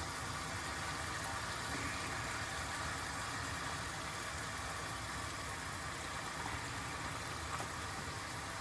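Steady, gentle sizzle of garlic, anchovies, chilies and olives frying in oil in a pan, over a steady low hum.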